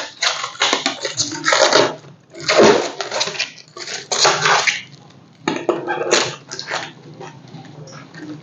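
Hard plastic being handled: a string of short scraping and rustling noises as the espresso machine's removable water tank is lifted out and handled.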